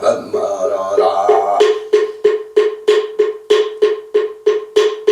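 A man's chanting voice for about the first second and a half, then a Korean Buddhist wooden fish (moktak) struck in an even run of about three pitched knocks a second.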